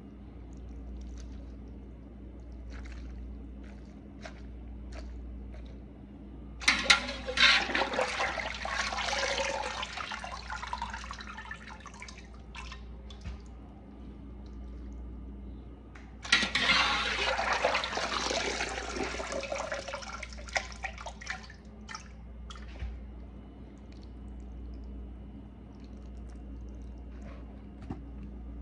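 Cooking water pouring and splashing off a wire basket of boiled chitlins lifted from the pot, in two rushes of about five seconds each that start suddenly and trail off into drips.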